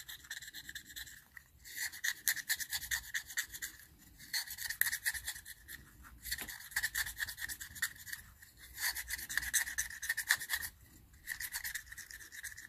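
Stanley knife blade held flat, scraping old residue off the flat glass lens of a Suzuki GT750 speedo or rev counter. It goes in runs of quick scratching strokes with a squeaky edge, broken by short pauses as the glass is turned.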